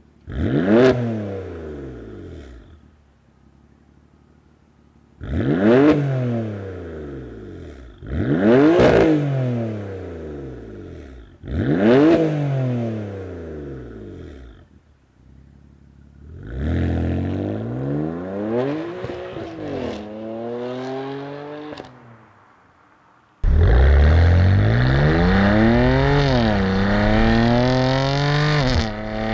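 BMW M3/M4's twin-turbo inline-six through a Dinan X-pipe exhaust, revved four times in sharp blips that rise and fall quickly, then held in a longer rev with a couple of smaller blips. After a sudden cut it is under hard acceleration, the pitch climbing, dropping once at an upshift and climbing again.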